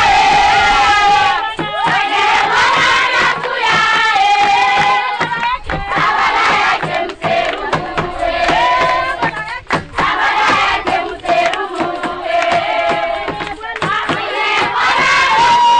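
A crowd of villagers, many of them children, singing and shouting together over one another, with hand-clapping.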